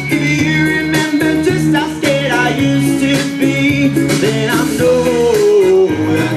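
Band music with guitar and a steady beat.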